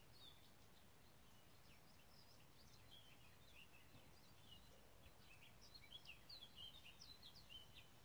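Faint woodland birdsong: many short, high chirps and twitters, getting busier in the second half, over a faint low background rumble.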